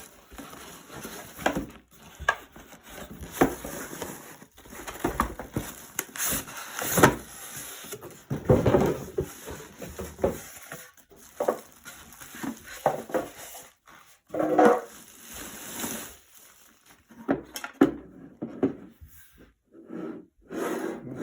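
A small aquarium's cardboard box and packing being opened and unpacked by hand: irregular knocks, scrapes and rustles of cardboard and plastic parts being moved about.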